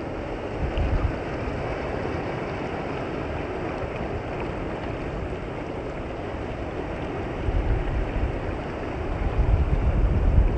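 Small waves washing in over wet sand at the water's edge, a steady surf hiss, with wind buffeting the microphone in gusty low rumbles, strongest near the end.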